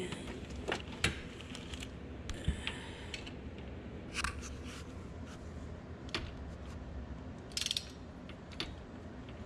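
A wrench and socket being picked up and handled, giving scattered sharp metallic clicks and clinks, with a quick run of clicks about three-quarters of the way through.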